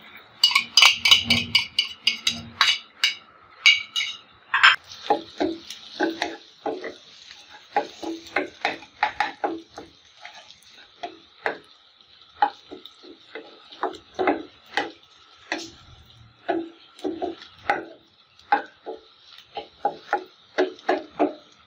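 A spoon scrapes beaten egg off a plastic plate into hot oil in a nonstick frying pan for the first few seconds. Then a wooden spatula stirs and breaks up the frying egg in short scraping strokes, about two a second, over a faint steady sizzle.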